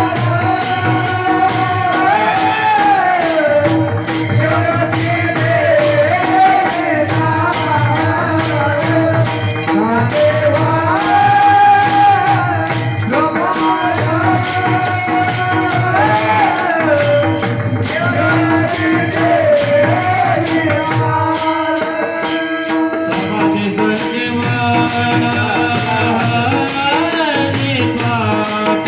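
A male voice sings a slow, gliding devotional melody, accompanied by pakhawaj drumming, jingling metal percussion and a steady held note beneath.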